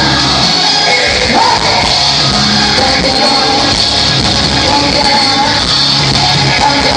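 Live rock band playing loudly, with electric guitars and a singer.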